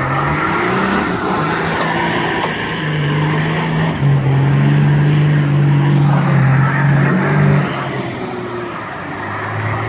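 Off-road 4x4 engines revving hard under load during a kinetic-rope recovery, dragging a stuck SUV out of a mud pool. Revs climb, hold high for a few seconds, then drop about seven and a half seconds in as the vehicle comes free.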